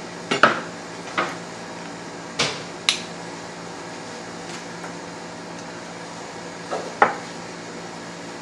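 Kitchenware being handled: about six sharp clinks and knocks of dishes or utensils, spaced irregularly, over a steady background hum.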